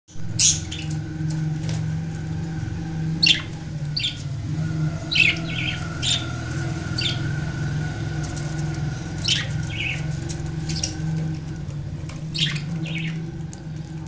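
Budgerigars chirping: short, sharp calls about once a second, over a steady low hum.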